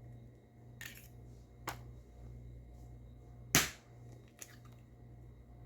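Eggs being cracked on the edge of a mixing bowl: a few light taps and one sharp, loud crack about three and a half seconds in.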